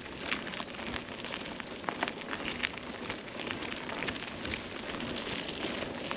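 Mountain bike rolling over a rough trail: a steady rushing crackle of tyres on the ground, with many small clicks and rattles.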